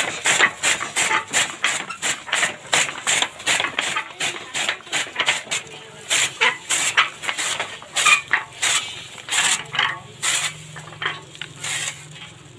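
Hand-turned chaff cutter chopping green fodder, its flywheel blade giving a sharp chop about three times a second, slowing and spacing out over the last few seconds.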